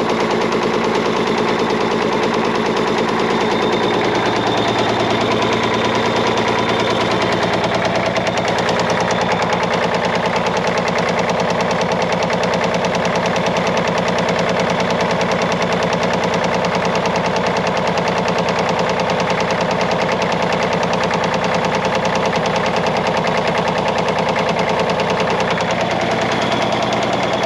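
Caterpillar 977L track loader's 10.5-litre diesel running with its muffler off, a loud, fast, even run of exhaust pulses. The number 6 injector line is cracked open and the running does not change, the sign that cylinder 6 is already dead.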